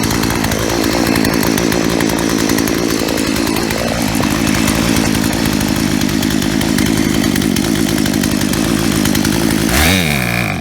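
Chainsaw engine running steadily with its idle speed just raised a quarter turn on the idle screw, then slowing and dying near the end. The owner thinks the stall is the saw running out of gas.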